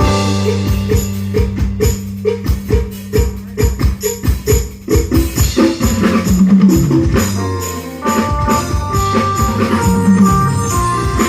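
Music: a tune with percussion striking a quick, even beat over held bass notes.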